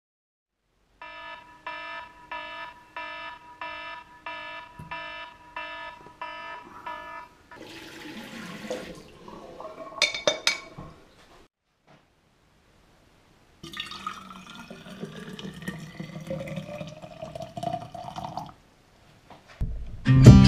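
An electronic alarm beeping about twice a second for some six seconds. Then bathroom sink sounds: toothbrushing with sharp clicks, and water running with a rising tone. Guitar music starts near the end.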